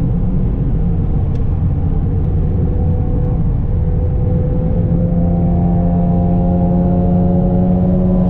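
Nissan Z Proto's twin-turbo V6, fitted with catless downpipes and a full 3-inch AAM exhaust, droning steadily at road speed as heard from inside the cabin, over heavy road rumble. About halfway through the engine note gets louder and climbs slightly in pitch as the car pulls harder.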